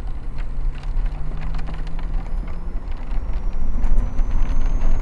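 Vehicle driving: steady low engine and road rumble with scattered light clicks and a faint high whine that slowly rises in pitch.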